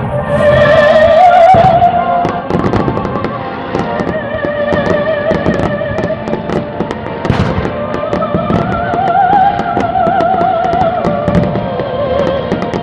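Fireworks bursting and crackling over loud show music, a melody with a wavering vibrato under many sharp firework cracks.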